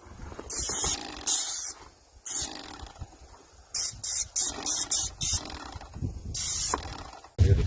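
Paint sprayer spraying in short trigger bursts: about ten sharp hisses, each a fraction of a second long, with brief pauses between, several in quick succession near the middle.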